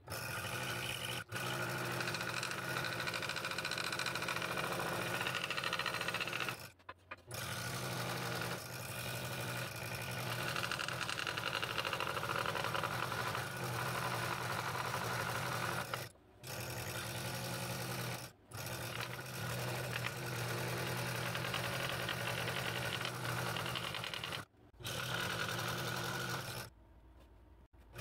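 Scroll saw running and cutting through a thick block of wood: a steady motor hum with a fast, even buzz from the blade's strokes, broken by a few short, sudden gaps.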